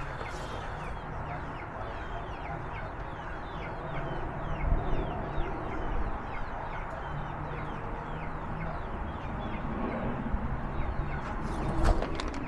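Backyard laying hens clucking and chirping, with many short, quick high calls, over a steady low hum.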